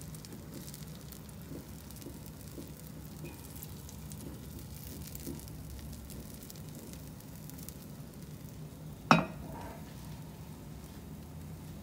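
Besan batter sizzling faintly in an oiled non-stick pan, a soft crackling hiss over a steady low hum. A single sharp knock rings out about nine seconds in.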